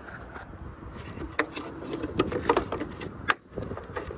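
Irregular plastic clicks and knocks as the bulb sockets are twisted out of a Honda Odyssey tail light housing. The sharpest click comes near the end.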